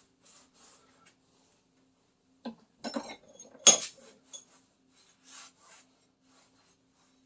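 Parts and tools being handled on a workbench: faint rubbing, then a short clatter of metal knocks with one sharp clank about halfway through, and more soft rubbing after it.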